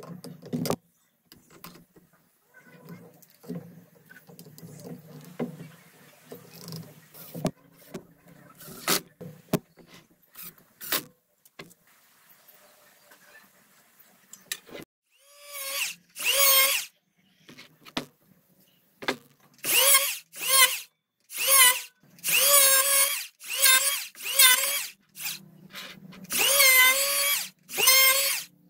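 Power drill running in about nine short bursts of a steady motor whine, each a second or so long, starting about halfway through. Before that, light clicks and knocks of wood and clamps being handled.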